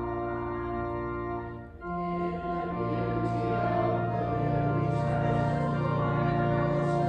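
Organ playing held chords; about one and a half seconds in the chord stops briefly and a fuller chord with a low bass note comes in.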